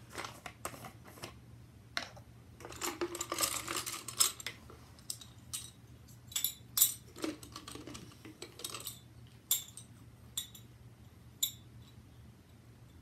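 Small plastic buttons clattering and clicking against a plastic jar as they are handled, in dense bursts of rattling for most of the first nine seconds, then a few scattered single clicks.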